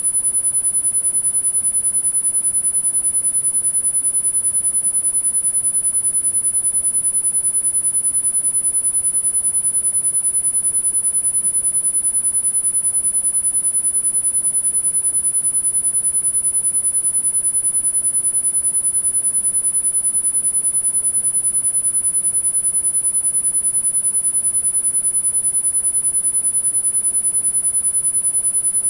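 A single very high-pitched, steady pure sine tone, held without any change: a tinnitus-masking sound-therapy tone.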